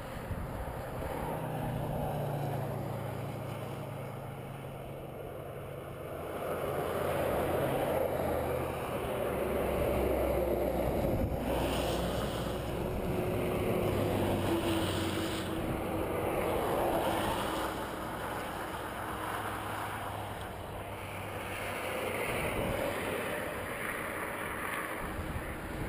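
Motor vehicles passing on a highway one after another, their engine and tyre noise swelling and fading every few seconds. Around the middle a steady engine drone stands out as a truck goes by.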